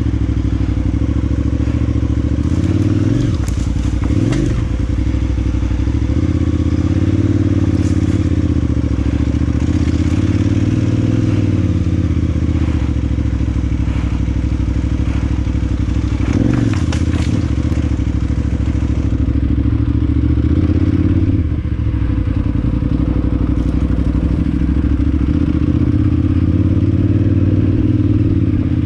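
KTM 990 Adventure S's V-twin engine running as the bike is ridden, its pitch rising and falling with the throttle, with a few short knocks and clatter.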